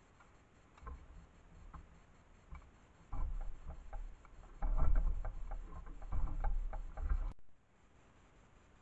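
Crackling, ticking clicks with low rumbling bumps, like something moving in dry leaf litter close to a trail camera's microphone. The clicks grow denser and louder from about three seconds in, then cut off suddenly about seven seconds in.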